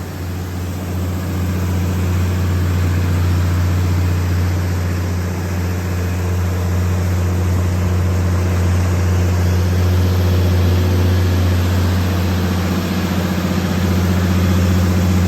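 MTU 12V2000 V12 diesel engine of a Kohler 750 kW generator set running at a steady, constant speed, growing a little louder over the first couple of seconds and then holding even.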